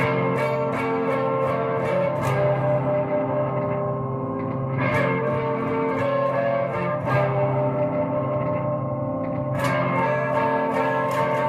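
Music led by a guitar with echo and reverb effects: held, ringing notes with repeated sharp strikes over them.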